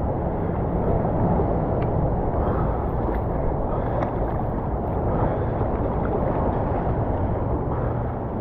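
Steady rush of whitewater rapids around a raft, with wind on the microphone.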